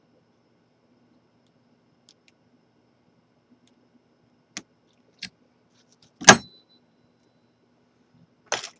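Sparse metallic clicks of a Peterson postal pick working inside a Gold Door padlock, with one loud sharp click and a short metallic ring about six seconds in and a few more clicks near the end.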